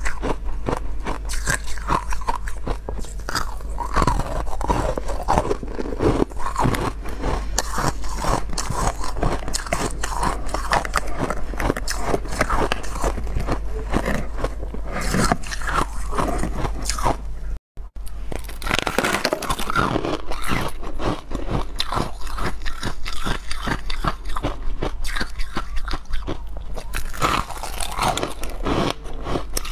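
Close-up biting and chewing of frost-covered ice: dense, crisp crunching that runs continuously, broken only by a momentary silent gap about two-thirds of the way through.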